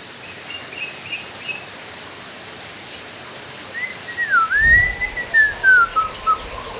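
Black-naped oriole singing: a few faint chirps, then from about four seconds in a run of clear fluting whistles that swoop down and step lower, over a steady hiss.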